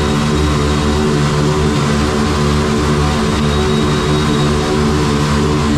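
Two small-capacity sport motorcycles doing a burnout, their engines held at steady high revs while the rear tyres spin and smoke, the sound echoing off the underpass walls.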